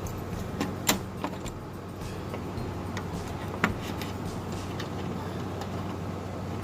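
Small metal drain-cleaner cutter heads clicking and clinking as they are handled and fitted onto the drum: a few separate sharp clicks, the loudest about a second in and another a little past halfway, over a steady low hum.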